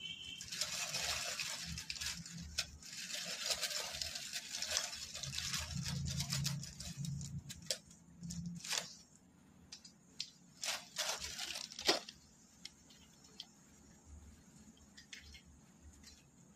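Bay leaf frying in hot oil in an aluminium wok: a loud, uneven sizzle that dies down after about eight seconds, then scattered crackles and pops that thin out to faint ticks.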